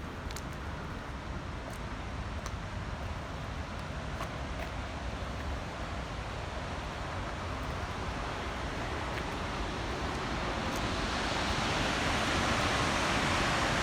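Steady rush of water pouring from the dam, growing louder over the second half.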